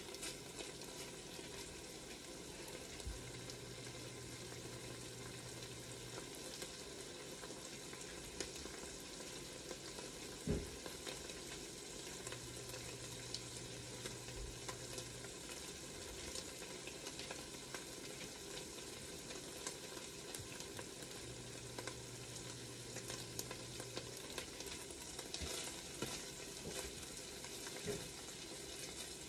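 Chopped bacon sizzling and crackling steadily as it fries in an enameled cast iron Dutch oven, stirred now and then with a spatula. A single knock sounds about ten seconds in.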